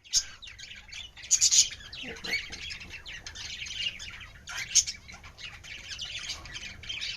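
A group of tame pet birds chirping and squawking together in dense, continuous chatter, with loud sharp calls just after the start, about a second and a half in, and again near five seconds.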